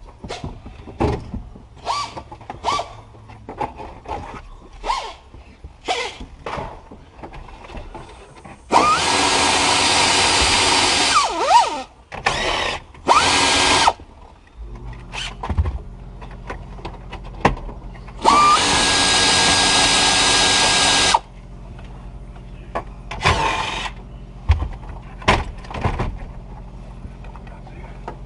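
Cordless drill running in several bursts, two long runs of about three seconds and a few short ones, each spinning up to a steady whine and stopping abruptly, with sharp clicks and knocks between them. It is unfastening the dashboard during a heater core replacement.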